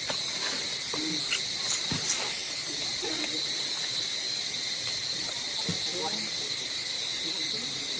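Insects buzzing in a steady, high, continuous drone, with faint short sounds scattered over it.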